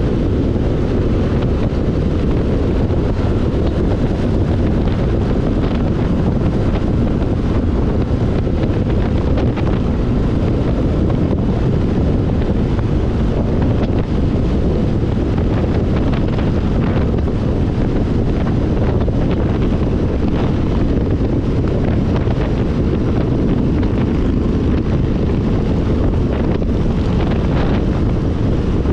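Steady wind buffeting on the microphone of a camera riding on a moving motorcycle: a constant low rushing at road speed.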